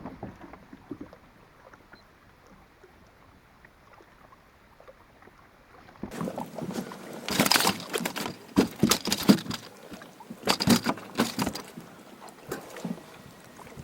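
Water splashing and knocking around a fishing kayak, in irregular bursts from about six seconds in, after a quieter stretch of faint water noise.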